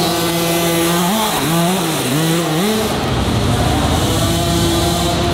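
Small youth 50cc dirt bike engines buzzing as they race, the pitch rising and falling with the throttle through the turns. About three seconds in, the rising and falling gives way to a steadier, rougher drone.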